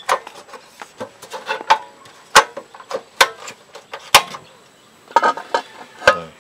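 Irregular sharp clicks and knocks of cookware being handled at an aluminium soup pot, about a dozen in all. Near the end comes a knock as the aluminium pot lid is set down on the wooden table.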